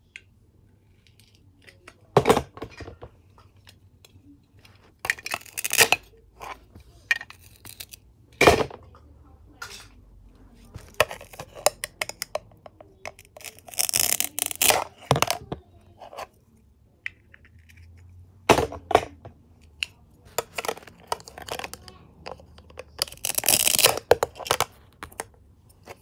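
Velcro tearing apart as a plastic toy knife cuts through velcro-joined toy fruit, several rasps of about a second each. Between them come sharp plastic clacks of the knife and pieces on a plastic cutting board.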